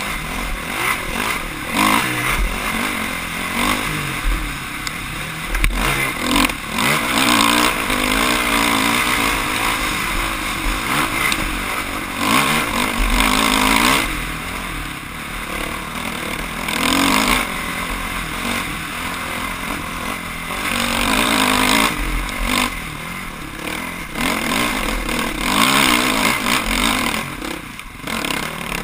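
Off-road motorcycle engine revving up and easing off again and again as the throttle is worked over the course.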